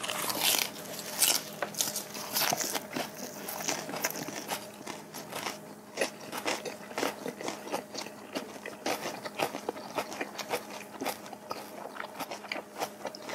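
Close-up crunchy biting and chewing of smoked-duck wraps rolled in pickled radish slices with raw onion, green onion and chili pepper: a steady run of short, crisp crunches.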